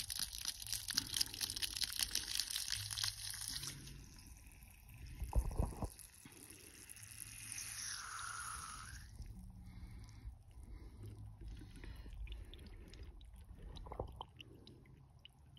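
Water jetting from the open threaded end of a garden hose and splashing onto grass, strongest for the first few seconds and then fading. About five and a half seconds in there is a single short thump.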